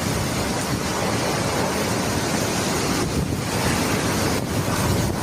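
Steady, loud rush of cyclone storm noise, with gusting wind buffeting the microphone.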